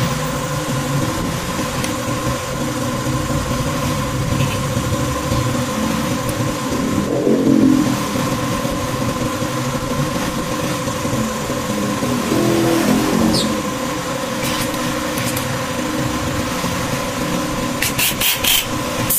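A steady machine or engine hum with a couple of fixed tones runs under the workshop sounds. Near the end, a cordless impact wrench gives a few short bursts as it is set on the scooter's variator drive-face nut.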